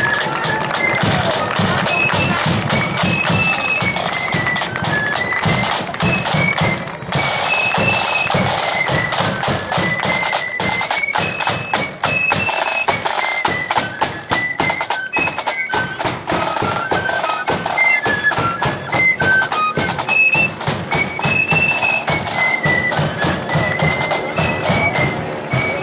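Blood-and-thunder marching flute band playing a march: flutes in unison carry a high, rising and falling melody over rapid snare drumming and a bass drum.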